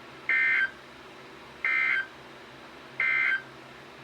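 Emergency Alert System end-of-message data burst sent three times: three identical short, harsh digital buzzes, each about a third of a second long and spaced a little over a second apart, marking the end of the warning broadcast.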